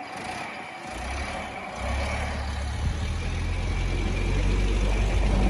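A vehicle engine running with a heavy low rumble that comes in about a second in and grows steadily louder, then cuts off suddenly at the end.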